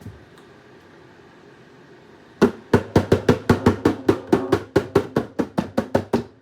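A quick, even run of about twenty drum strikes, about five a second, starting a couple of seconds in and cutting off suddenly.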